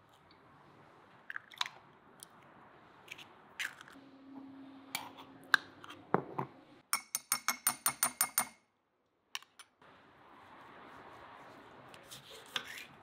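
Close-up kitchen handling sounds: light clicks and knocks of a glass and a jar set down on a countertop, a quick even run of about a dozen clicks in the middle, and a knife cutting into a lemon near the end.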